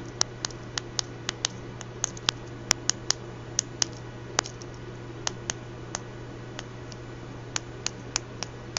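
Buttons of a 4x4 matrix keypad being pressed one after another, making a run of sharp, irregular clicks about two or three a second, over a steady low hum.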